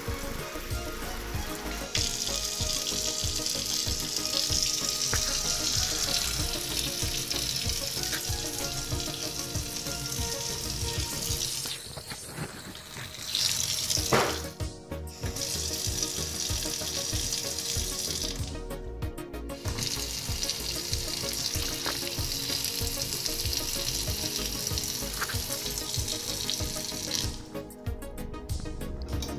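Water running from a kitchen faucet into a sink as a steady hiss. It cuts off twice for a second or two and stops near the end, with a sharp clunk about halfway through. Background music plays underneath.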